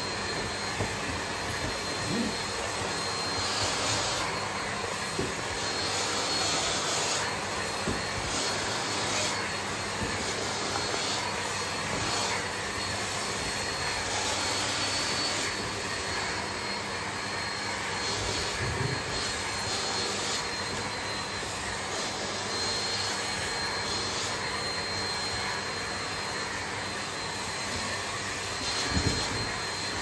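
Bosch BGS21X320 bagless canister vacuum cleaner running steadily, its hose nozzle drawn over the surface of a rubber fitness ball: an even rushing hiss of suction with a faint high whine.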